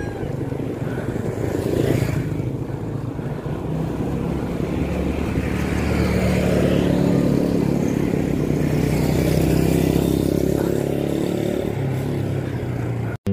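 A small motorcycle engine running close by, growing louder through the middle and easing off near the end, over wind rumble on the microphone of a moving bicycle.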